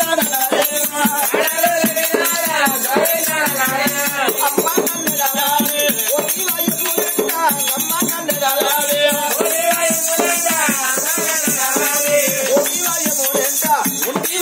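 Oggu Katha performance music: a man singing a Telugu devotional chant, with the performers' ankle bells (gajjelu) jingling as they dance and a drum keeping the beat. The jingling grows brighter about two-thirds of the way through.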